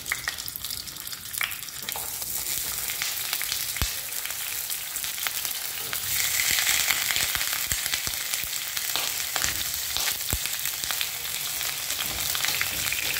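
Pork chops sizzling in hot oil in a frying pan as they are laid in one by one. The sizzle grows louder about six seconds in as another chop goes into the pan, with scattered sharp pops throughout.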